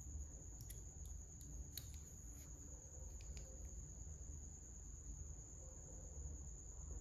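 Faint clicks of small plastic Lego minifigure parts being handled, a few in the first few seconds, over a steady high-pitched tone and a low rumble.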